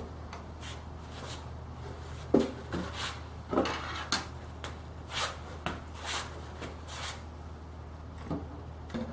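Thin plywood panels being handled: irregular light wooden knocks and rubbing about once a second, over a steady low hum.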